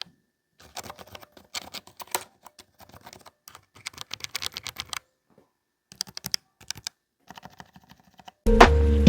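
Mechanical keyboard clicking in quick runs of sharp plastic clicks with short pauses between them. Music starts suddenly near the end.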